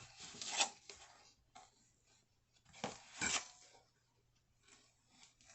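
Brief scraping and rustling of a measuring spoon and ingredient containers while dry ingredients are measured into a mixing bowl, in two short bouts: one right at the start and one about three seconds in.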